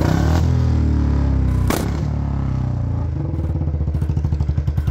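Royal Enfield Bullet 350's single-cylinder engine coming off the throttle, its pitch falling, with one sharp exhaust pop (a 'patakha' backfire on the overrun) just under two seconds in. About three seconds in it settles back into its steady thump.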